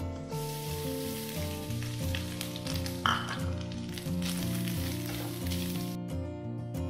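Grated coconut sizzling as it hits hot ghee in a frying pan with fried cashews and raisins, then stirred with a spatula. The sizzle starts just after the beginning and cuts off about six seconds in. Background music plays underneath.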